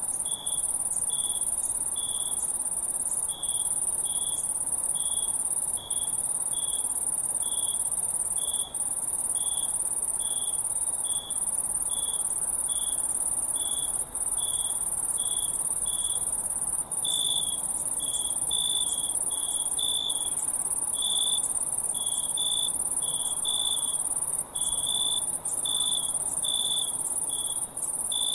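Crickets chirping: a continuous very high trill with a lower chirp repeating about twice a second underneath, more callers overlapping in the second half. A few very brief dropouts break the sound.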